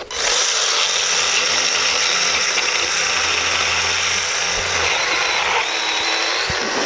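Aesculap surgical power handpiece switched on and driving a reamer into femoral bone through the box-preparation guide block: a loud, steady high-pitched whir with grinding of the cutter on bone, its pitch shifting slightly about five and a half seconds in.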